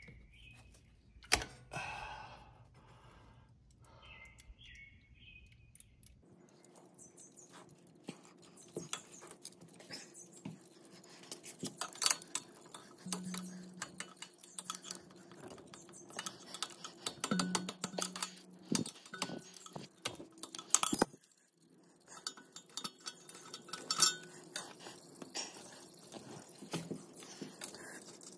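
Scattered clicks and metallic clinks of hands and tools working a hose and clamp off a fitting under a compact tractor. A faint steady hum comes in about six seconds in.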